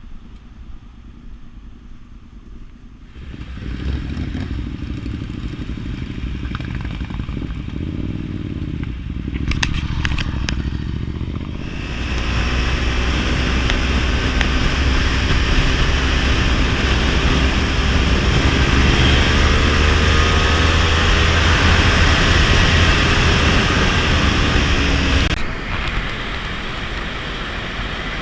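Motorcycle engines running on the road, with pitch rising and falling as the bikes pass and change speed. The sound picks up about three seconds in and grows louder from about twelve seconds, then drops suddenly near the end.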